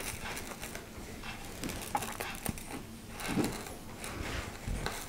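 Tea towel rustling and tiny resin diamond-painting drills ticking and pattering as they are scraped across the cloth into a small plastic tray. A dog whines briefly about three and a half seconds in.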